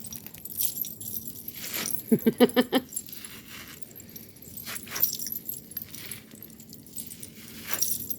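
Unpacking noises: rustling and light metallic clinks as silver pieces are handled in their packing, with a short, quick run of pitched, voice-like pulses about two seconds in.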